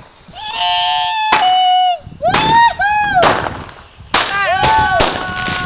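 Fireworks going off: a string of sharp bangs, coming faster in the second half, with short pitched tones that rise and then fall between them.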